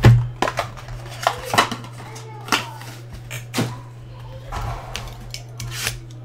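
Trading-card packs, cardboard boxes and clear plastic card holders being handled: a string of sharp taps, clicks and crinkles, the loudest a knock right at the start, over a steady low hum.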